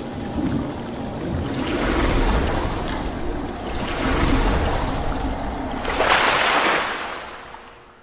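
Rushing, surf-like whooshing noise that swells in about three surges and fades out near the end, an intro sound effect laid over the video's opening graphics.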